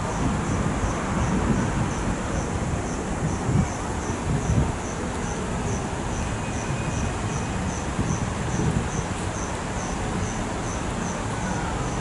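An insect chirping in a steady rhythm, short high chirps about two or three a second, over a steady low rumble of background noise.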